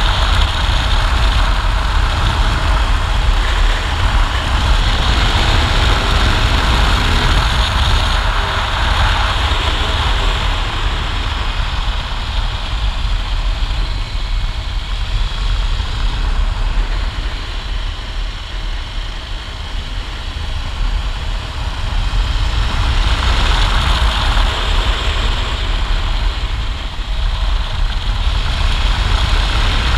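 Motorcycle riding at road speed: wind rushing over the microphone with heavy low rumble, the engine and tyre noise beneath. The rush eases for several seconds in the middle, as the bike slows through curves, and builds again near the end.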